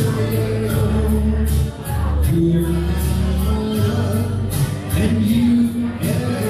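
Music with a singing voice over a steady drum beat and bass, filling a busy bar room.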